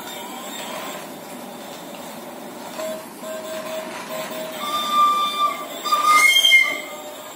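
Battery-powered remote-control stunt toy car running over a stone floor, its small motor and wheels whirring steadily. From about five seconds in, high held tones come and go, loudest just after six seconds.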